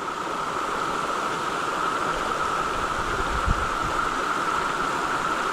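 Steady, unbroken rush of a tall waterfall's falling water, with a brief low bump about three and a half seconds in.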